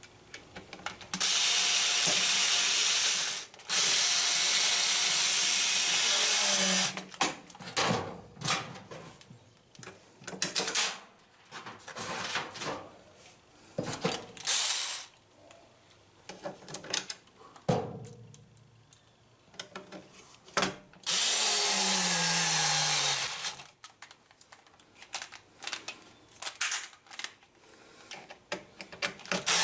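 Electric drill-driver driving in screws: three runs of a few seconds each with many short trigger taps between them, the motor whine dropping away as each run ends.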